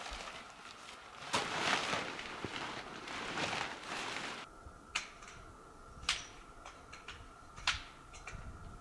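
Tent fabric rustling and flapping as a large hot tent is unrolled and shaken out on snow. It stops abruptly about four and a half seconds in, and a few sharp clicks follow.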